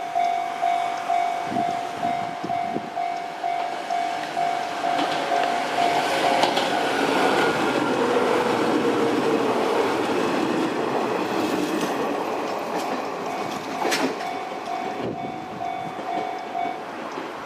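Japanese level-crossing warning bell ringing in a steady ding-ding rhythm, about two strokes a second, while an Izuhakone Railway 3000 series electric train passes through the crossing. The train's noise swells and a whine falls in pitch as it goes by. The bell stops shortly before the end.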